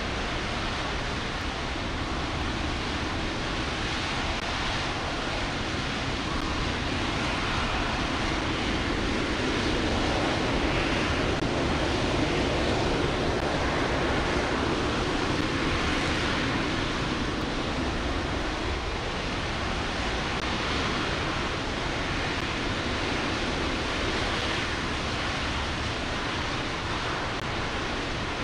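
RS-25 liquid-hydrogen/liquid-oxygen rocket engine firing continuously on a test stand: a steady rushing noise that swells a little louder midway through.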